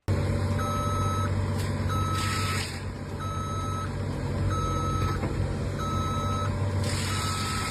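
Heavy vehicle's reversing alarm beeping, six evenly spaced single-tone beeps, over the steady rumble of its running engine, with two short bursts of hiss.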